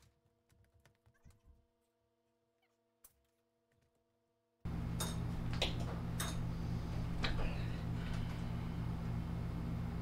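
Faint ticks and taps as a motorcycle tyre is worked onto its rim underfoot. About halfway through, a steady low machine hum cuts in suddenly and runs on, with a few sharp knocks over it.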